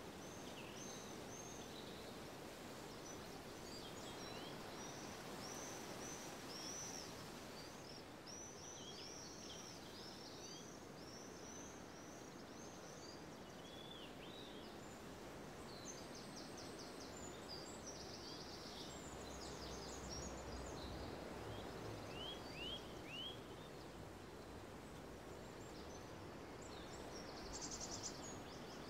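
Songbirds singing and chirping over a faint steady outdoor rush: many short, high, arched notes in quick series, with a few rapid buzzy trills around the middle and near the end.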